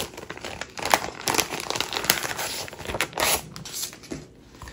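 Packaging being handled: dense, irregular crinkling and rustling with many small crackles, dying away in the last second or so.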